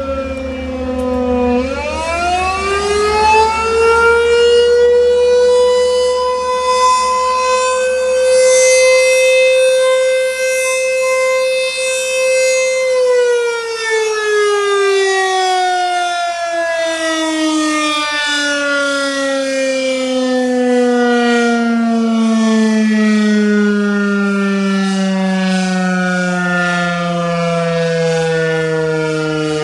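American Signal T-128 rotating outdoor warning siren sounding during its test. It winds back up from a falling tone about a second and a half in, holds a steady pitch for several seconds, then winds slowly down with a long falling pitch. The loudness swells and fades throughout, and the sound is echoing.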